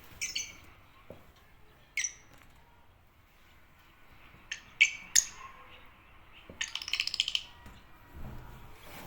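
Agapornis lovebirds chirping: short, sharp high calls a second or two apart, then a quick chattering run about seven seconds in.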